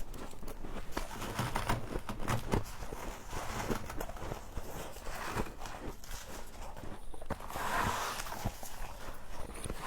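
Humidifier frost being bitten and chewed: a steady run of crisp crunches and crackles.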